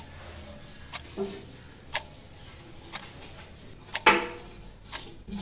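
A clock ticking steadily, once a second. About four seconds in, a louder splash as a hand plunges into the water of a glass fish tank.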